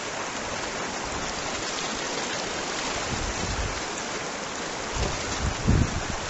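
River water rushing over shallow riffles around a kayak, a steady hiss. In the last second or so, wind gusts buffet the microphone in low, uneven rumbles.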